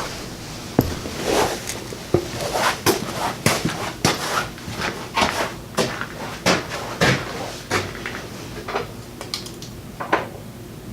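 Irregular clunks, clicks and knocks, about one or two a second, with no engine running.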